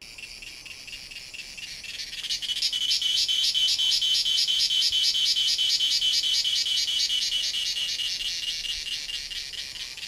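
Chorus of cicadas singing: a high, rapidly pulsing buzz that starts low, swells to full intensity about two seconds in, and eases off slightly near the end.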